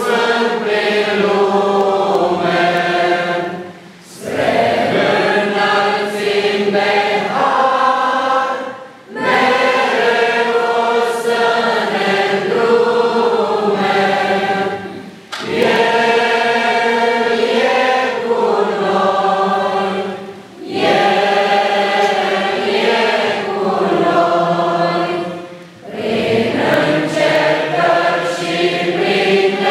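A church congregation singing a hymn together, in phrases of about five seconds, each broken by a short breath.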